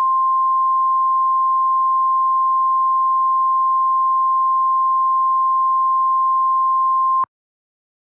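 NOAA Weather Radio warning alarm tone: a single steady 1050 Hz beep held about seven seconds that cuts off abruptly. It signals that a warning message is about to be broadcast.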